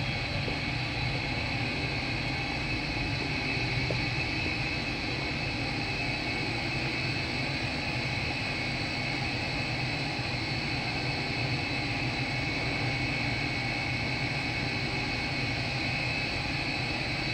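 A steady mechanical drone: a low hum with a thin, high whine above it, unchanging throughout.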